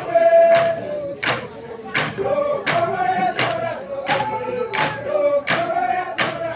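Burundian drums struck in a steady beat, about one and a half strokes a second, under a group of voices singing together.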